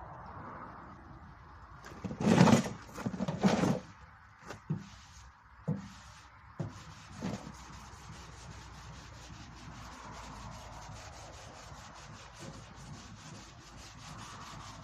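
Hand wet-sanding of primer-filler on a Peugeot 203's steel front wing: a steady rub of abrasive paper in quick, even strokes, taking hold about a third of the way in. Before it, about two seconds in, a few loud knocks and bumps, the loudest sounds here.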